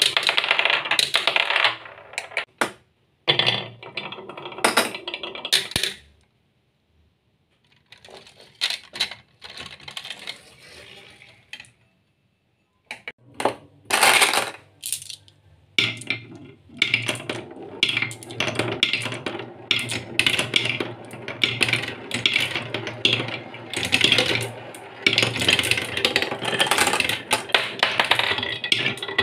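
Marbles rolling and clattering along a wooden marble run, with quick clicks of marble striking wood. The sound drops out to silence twice, once about a quarter of the way in and again shortly before the middle, then runs on more densely through the second half.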